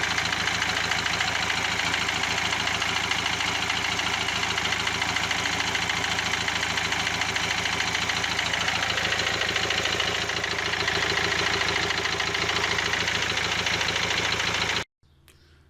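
Renault Megane 1.5 dCi four-cylinder diesel idling with a rapid, steady ticking knock that comes only at idle. The mechanic puts it 90% down to the fuel injectors. It cuts off abruptly near the end.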